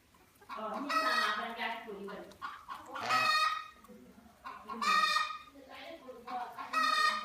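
Domestic chickens calling in a farmyard: loud, repeated calls about every two seconds, four in all.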